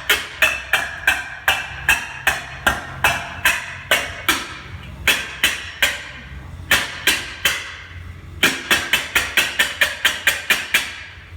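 Loud, repeated banging made on purpose as an obnoxious noise: sharp strikes, each with a short ring, about two to three a second. After a couple of short pauses it speeds up to a fast run of about five a second near the end.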